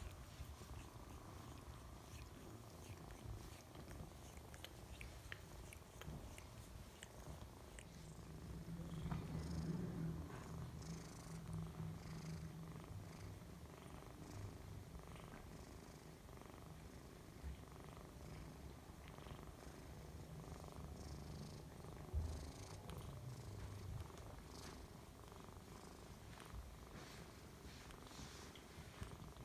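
A domestic cat purring close by: a steady low rumbling purr, loudest about ten seconds in.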